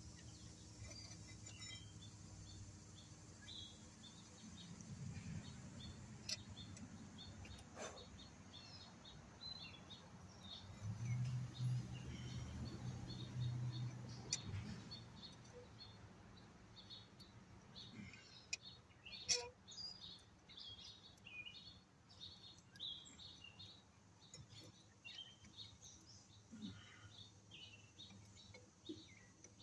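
Birds chirping faintly with many short, high calls throughout. A low hum swells about a third of the way in, and there are a couple of sharp clicks, the louder one a little past the middle.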